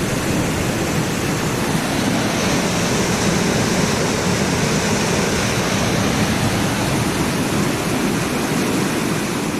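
Uvita Waterfall: a steady rush of falling water, an even wash of noise without any break.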